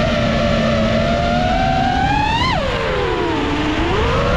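FPV racing quadcopter's brushless motors and propellers whining over a steady rush of air. The pitch rises, drops sharply about two and a half seconds in as the throttle is cut, then climbs again near the end.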